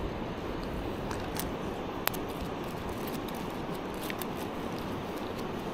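Small sharp clicks of tackle being handled over a steady background hiss, as a small trout is worked free of the fly in a landing net; the loudest click comes about two seconds in.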